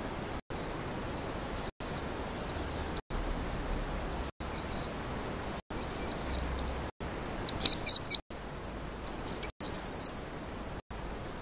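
A baby hedgehog making high-pitched chirping squeaks in short runs, faint at first and loudest in two quick clusters near the end, over a steady hiss.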